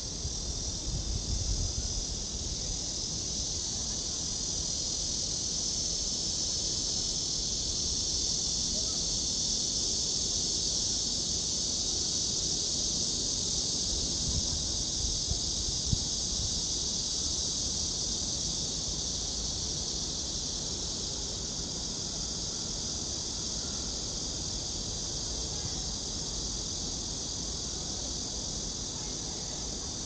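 Insect chorus: a steady, unbroken high-pitched hiss of many insects calling at once. There is some wind rumble on the microphone in the first couple of seconds and a single click about halfway through.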